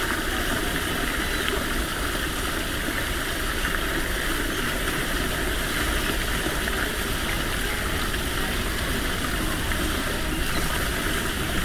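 Flowing water rushing steadily with no change in level.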